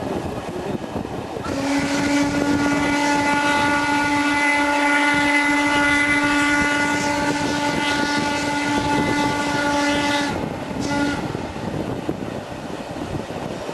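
Steam whistle of the BDZ 46.03 steam locomotive blowing one long, steady blast of about nine seconds, then a brief short toot, over the rumble of the running train.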